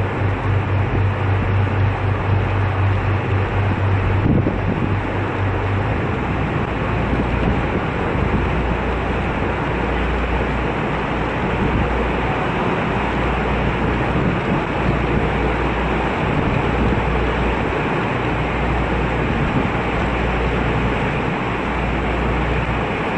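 An engine running steadily under a constant rush of wind noise; its low hum drops to a deeper note about six seconds in.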